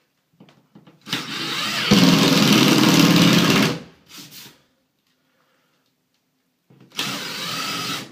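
Cordless drill driving screws into drywall. A run of almost three seconds gets louder and deeper about a second in as the screw bites, then a short blip of the drill, and another run starts near the end.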